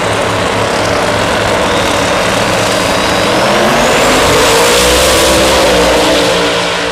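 Two door-slammer drag-racing cars' engines running hard at the starting line, then launching about four seconds in. The sound rises in pitch and builds to its loudest as they accelerate away, and begins to fade near the end.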